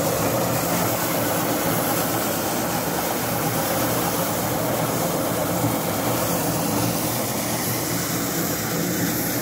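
Paddy threshing machine running steadily, its spinning drum beating the grain off bundles of rice sheaves held against it, with an even mechanical drone.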